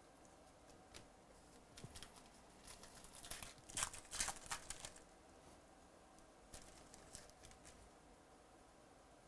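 Foil trading-card pack torn open by hand: a crinkly tearing burst between about three and five seconds in, loudest around four seconds. A few faint clicks and rustles from handling come before and after.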